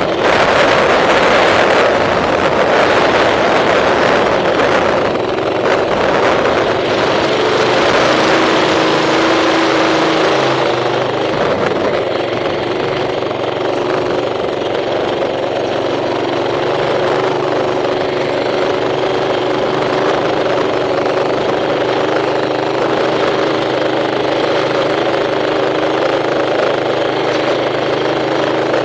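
Mini bike engine running steadily under way over loose desert gravel, with wind buffeting the microphone. The sound is rougher and noisier for the first few seconds.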